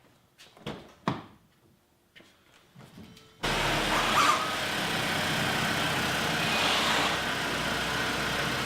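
A few light knocks, then about three and a half seconds in a motor starts abruptly and runs steadily.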